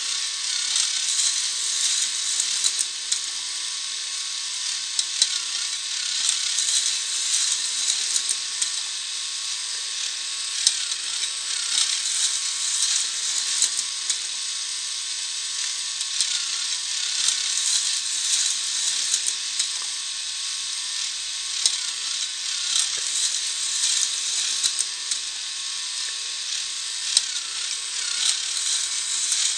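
K'nex fairground ride and roller coaster mechanisms running: a continuous dense clicking and rattling of plastic gears and chain, with now and then a louder click. Under it is a faint steady whine.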